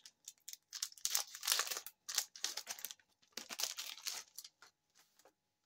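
Clear plastic card bag crinkling and rustling as fingers work it open, in irregular bursts that thin out near the end.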